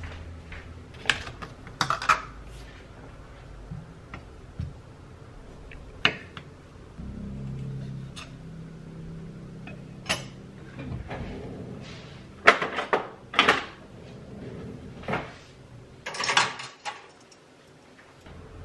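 Kitchen handling sounds: a string of knocks and clatters as dishes, a yogurt tub and utensils are set down on a counter, and a knife cutting kiwi against a wooden cutting board. A low hum runs for a few seconds around the middle.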